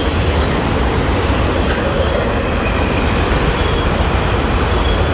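Cars of a CSX auto-rack freight train rolling past close by: a loud, steady rumble of steel wheels on rail.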